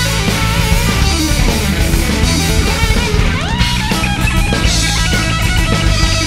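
Rock music: electric guitar with bass and drums, and a guitar note sliding up in pitch about three seconds in.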